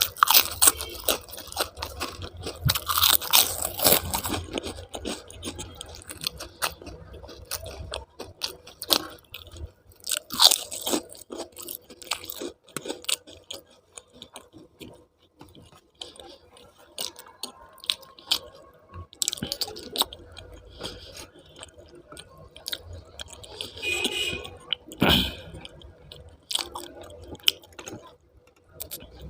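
A person chewing and crunching food close to the microphone, in irregular bites and chews that are busiest in the first few seconds.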